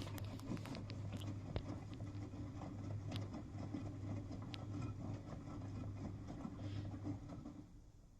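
V-Zug Adora SLX 258 front-loading washing machine running: a steady low motor hum with light clicking and pattering of the turning drum, dying away near the end as the drum stops.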